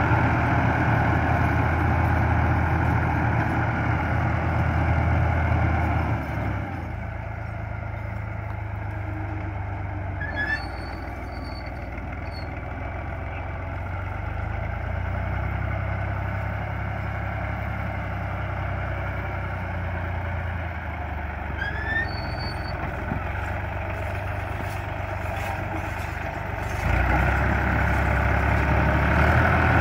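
Al-Ghazi tractor's diesel engine running steadily under load while driving a rear-mounted rotavator that churns the soil. It drops in level about six seconds in and comes back louder near the end.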